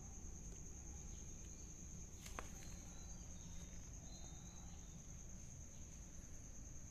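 Faint, steady high-pitched insect drone, with a low rumble under it and a single click about two seconds in.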